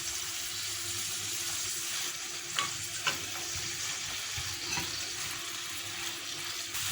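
Chicken livers and gizzards frying in oil in a pan with chopped hot peppers, a steady sizzle, with a few light knocks of the stirring spoon against the pan.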